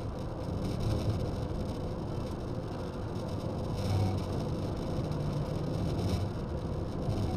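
Car road noise heard from inside the cabin while driving at speed: a steady rumble and hiss of tyres and engine. It swells briefly about four seconds in as the car passes close alongside a semi truck.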